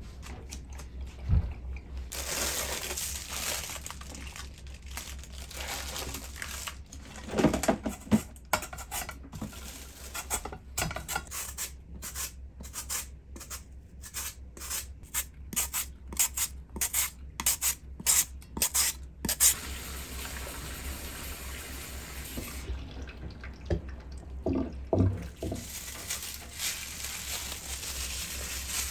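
Raw potato being grated on a plastic julienne slicer into a bowl: rhythmic scraping strokes, about two a second, which then stop. Near the end, plastic wrap crinkles as it is peeled off a block of raw salmon.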